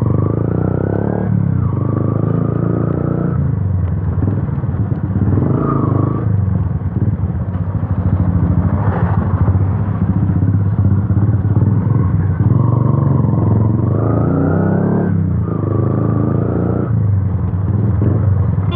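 Yamaha FZ V2's single-cylinder engine running loud through an Akrapovic exhaust with the dB killer removed, the motorcycle being ridden. The engine revs rise and drop several times as it accelerates and shifts through the gears.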